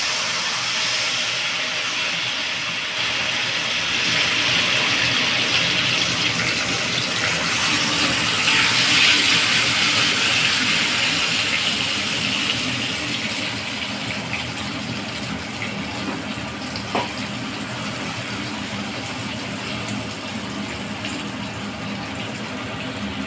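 Elephant foot yam fries deep-frying in hot oil in a steel kadai, a steady hissing sizzle that swells a few seconds in and then gradually dies down. One short sharp tap about seventeen seconds in.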